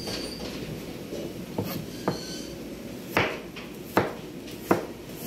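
Chef's knife chopping a carrot on a plastic cutting board: a few lighter knocks, then sharper, louder chops about once a second in the second half.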